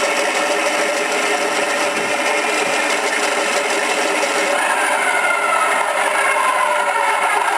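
Radio-controlled Fw 190 warbird model running, its onboard sound module playing a rough, buzzing piston-engine drone over the electric motor and propeller. The drone holds steady, then its pitch shifts about five seconds in.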